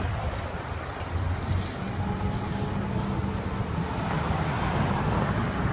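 City street traffic heard from a bicycle: the low, steady hum of motor vehicle engines running close by.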